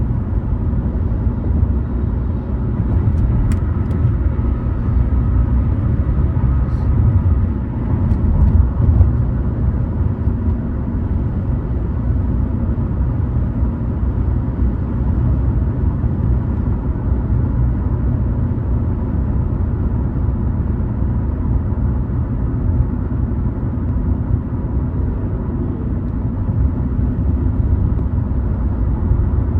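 A car driving at road speed: steady low rumble of tyres and engine.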